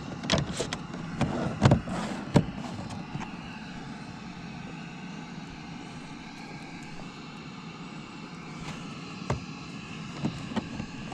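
Hand work on a car door: a cluster of sharp clicks and knocks in the first couple of seconds, then a steady faint hiss, then a few more knocks near the end.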